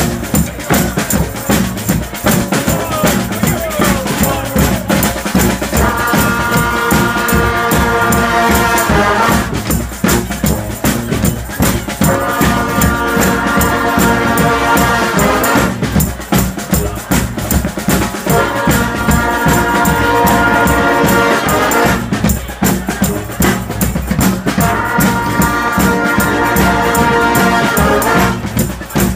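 Street brass band with drums playing a rock tune. The percussion keeps a steady, driving beat throughout, while the horns come in four times with long held chords of about three to four seconds each.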